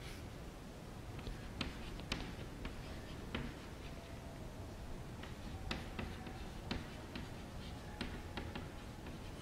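Chalk tapping and scratching on a chalkboard as a sentence is written: irregular sharp ticks, a dozen or so, over a steady low background noise.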